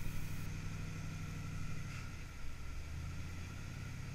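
Rock crawler buggy's engine running at low revs under load as it crawls up a boulder ledge, the engine note shifting a little about halfway through.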